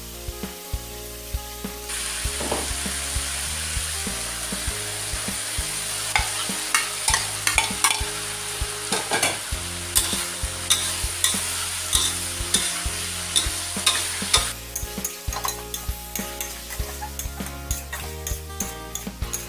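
Food sizzling in a hot pan while a spatula scrapes and knocks against the metal in quick, irregular clicks. The sizzle starts about two seconds in and cuts off sharply near the end.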